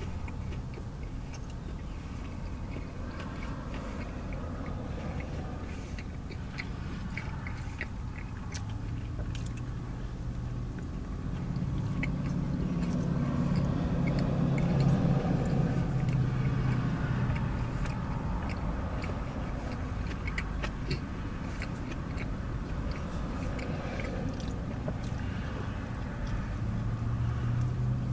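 Close chewing and wet mouth clicks from a man eating a sub sandwich, over a steady low vehicle rumble that swells for several seconds in the middle and again near the end.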